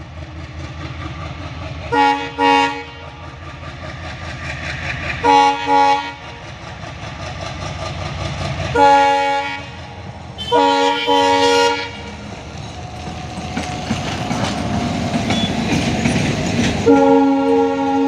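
Indian Railways ALCO diesel locomotive pulling a passenger train away, its engine rumbling louder as it accelerates. Its multi-tone horn sounds again and again: a short double blast about two seconds in, single blasts and another double blast through the middle, and a long blast near the end. Wheels clatter on the rails as the train passes in the later part.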